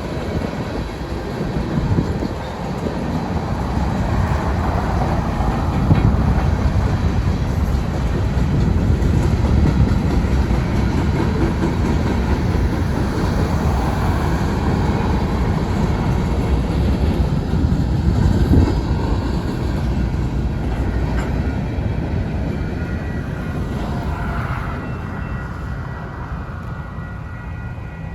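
Union Pacific grain train's covered hopper cars rolling past, a steady rumble of steel wheels on rail that eases off toward the end. A faint high wheel squeal comes in over the last few seconds.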